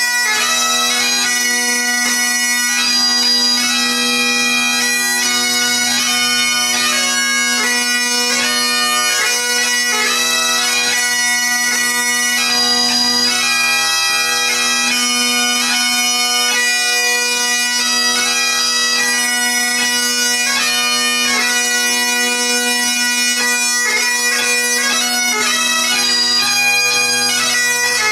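A quartet of Great Highland bagpipes playing a medley: steady drones underneath the chanters' melody, with no break.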